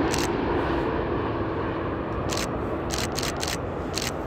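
Jet engines of a Virgin Atlantic twin-engine wide-body airliner on final approach, a steady rumble with a low hum that fades slightly as the aircraft passes. Short camera shutter clicks sound over it, one early and a quick run of them in the second half.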